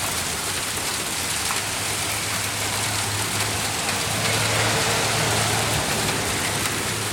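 Heavy hail falling steadily, an even hiss of many small impacts, with a low steady hum underneath.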